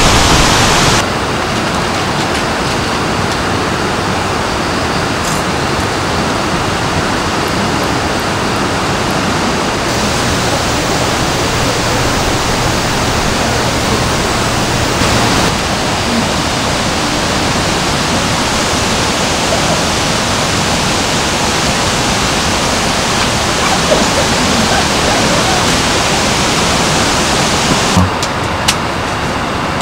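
Steady rush of a mountain stream flowing over rocks, its tone shifting slightly a few times.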